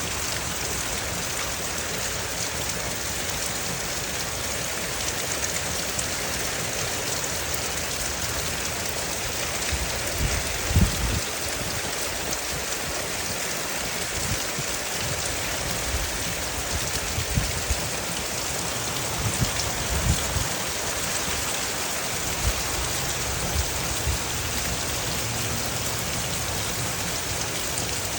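Steady rain falling, an even hiss, with a few short low thumps scattered through it, the loudest about eleven seconds in.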